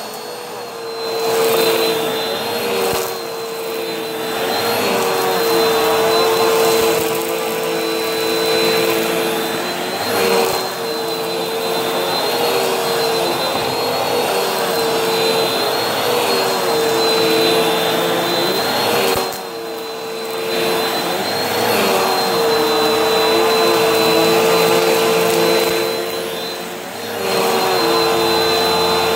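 Vacuum cleaner running with a steady motor whine over a rushing airflow. Its pitch wavers, and its loudness dips briefly several times.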